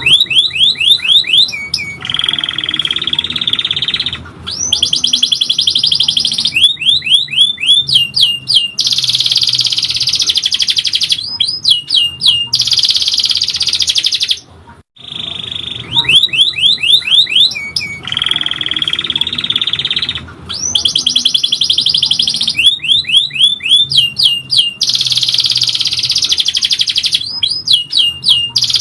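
Domestic canary in full song: runs of quick, down-slurred notes alternate with long, shrill rolling trills. After a short break about halfway through, the same sequence of phrases repeats.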